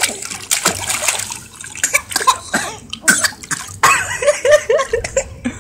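Pool water splashing and lapping as a baby held on a lap kicks and slaps at the surface, in many short irregular splashes. About four seconds in comes a quick run of four or five short voice sounds.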